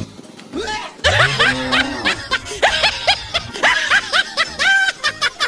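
A laughter sound effect: quick, high-pitched snickering giggles in rapid succession from about a second in, over background music.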